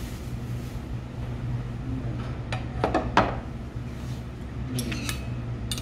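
Tableware knocking and clinking on a table as a plate and a metal noodle bowl are set down and moved, with a sharp clatter about three seconds in and lighter clinks near the end. A steady low hum runs underneath.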